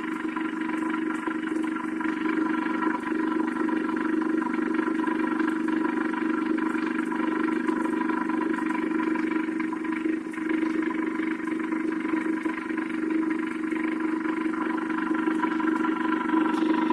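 Steady, unbroken hum of an aquarium pump, holding one even pitch with higher overtones and no change in level.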